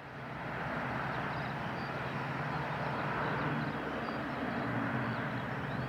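Steady jet engine noise from a Boeing 747-8's four GEnx turbofans on its landing approach, with a low hum beneath. Small birds chirp faintly and high above it.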